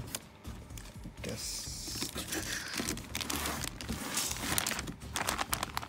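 Cardboard boxes scraping and rustling as a boxed RC truck is slid up out of its cardboard shipping carton, with plastic film crinkling and many short scuffs and taps, getting busier after about two seconds.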